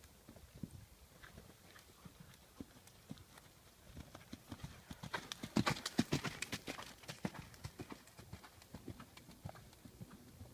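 Hoofbeats of a horse moving over a sand arena surface, a rapid run of dull knocks that grows loud as the horse passes close by about five to seven seconds in, then fades as it moves away.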